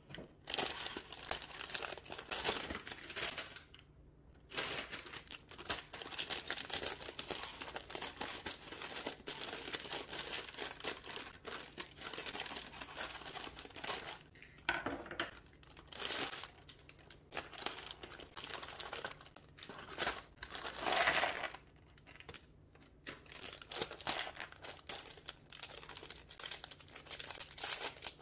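Clear plastic parts bags crinkling as they are handled and pulled open, a dense irregular crackle with a couple of brief pauses.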